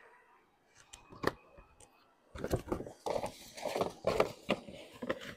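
Stiff paper underlay crackling and rustling as it is unrolled and pressed flat against a timber dormer cheek, with one sharp knock about a second in.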